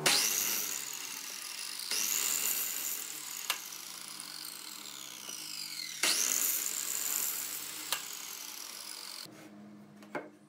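Miter saw cutting through a thick wooden beam: the motor's whine rises sharply as it is switched on three times, about two and four seconds apart, and falls away as the blade coasts down between. The sound cuts off near the end.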